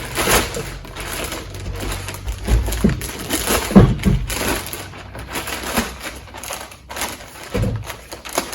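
Skateboard packaging being handled and pulled open as the board is unwrapped: irregular rustling and scraping, with a louder knock about four seconds in.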